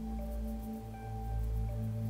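Background music: soft held tones over a steady low bass.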